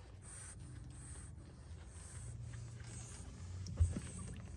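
Faint rubbing and shuffling against fabric, with one sharp thump just before the four-second mark, over a faint steady low hum.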